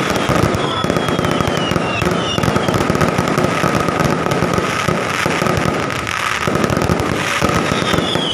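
Fireworks going off in a dense, continuous crackle of many small bangs, with a few short falling whistles.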